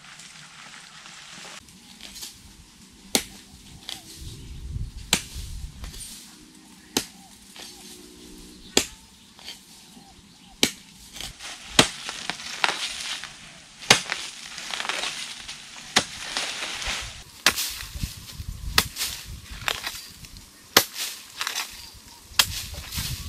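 A long-handled hoe striking hard, dry soil over and over, sharp chopping thuds every one to two seconds that come faster near the end. Dry bamboo leaves rustle and scrape between the strokes.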